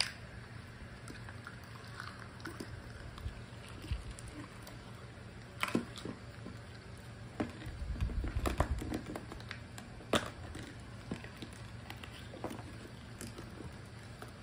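Hands working clear slime and its plastic packaging: scattered soft clicks, crackles and squishes, busiest about eight to ten seconds in, with a few sharper clicks.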